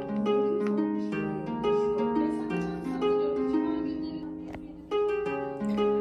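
Background music: a gentle melody of plucked, harp-like notes, a new note about every half second, each fading after it is struck.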